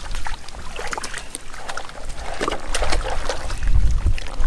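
Small splashes and trickling in shallow muddy water as hands grope for fish, with scattered clicks and a stronger low rumble near the end.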